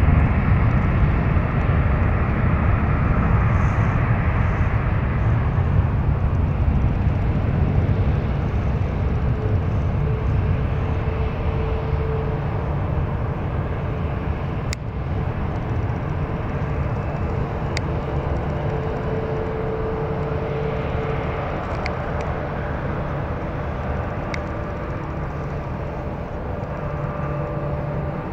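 Jet airliner engines running at low power on the taxiway: a steady rumble that eases slowly, with a faint steady whine in it.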